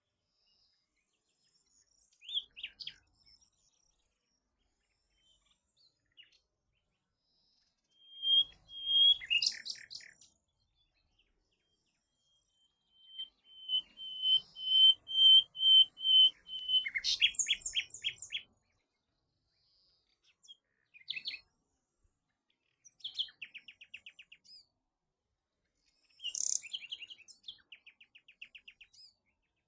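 A songbird singing in short separate phrases with pauses between them. The longest phrase, about halfway through, is a run of clear repeated whistled notes that breaks into a fast trill, and shorter trills come near the end.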